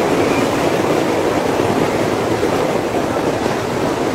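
Diesel-hauled passenger train rumbling steadily across a railway bridge over the sea, heard as an even rushing noise with no distinct clicks or engine note.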